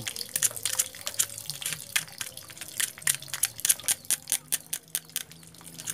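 Light, irregular clicks and taps, several a second, from a screwdriver tip and fingers handling the rusted metal body of a jet-pump pressure switch.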